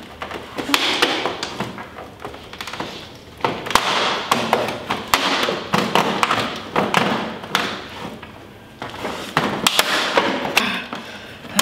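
A knife sawing through a flat-screen TV's plastic back casing: repeated scraping strokes, a second or two apart, with sharp clicks and knocks from the plastic.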